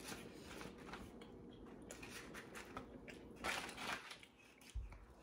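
Close-up eating sounds: chewing a mouthful of curly fries, with scattered faint crunches and clicks as fingers pick through the paperboard fry box. A louder burst of crackling comes about three and a half seconds in.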